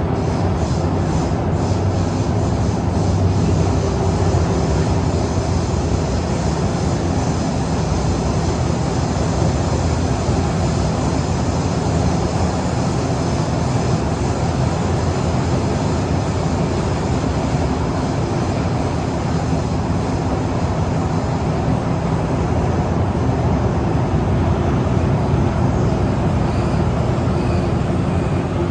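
Steady interior running noise of an SMRT Kawasaki & CRRC Sifang CT251 metro train travelling between stations in the tunnel: a deep, even rumble of wheels on rail.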